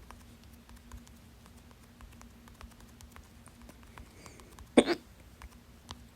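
A woman's hiccup: one sharp, loud, involuntary hiccup about three-quarters of the way in, from hiccups put down to trapped gas from super fizzy soda.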